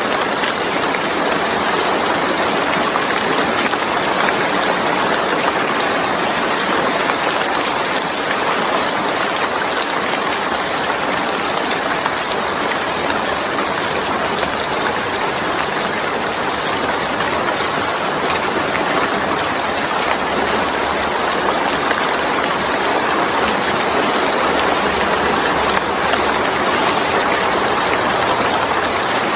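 Steady rain falling, an even dense hiss with no single drops or pauses standing out.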